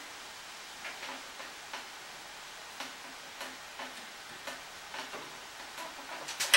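A polymer bandsaw tire being stretched by hand onto a bandsaw wheel rim: scattered faint ticks and rubbing at irregular intervals, with one sharp click at the very end.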